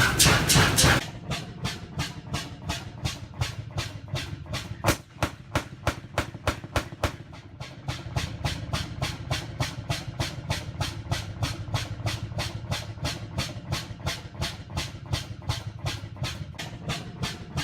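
Bovaird and Seyfang oil field engine running with a steady, even beat of about four strokes a second over a low hum. A louder noisy rush covers the first second.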